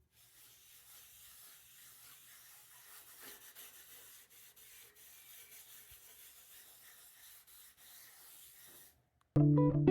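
Faint hand rubbing on a wooden surface, as in hand-sanding or wiping on a finish, in steady strokes that stop about nine seconds in. Acoustic guitar music starts right after.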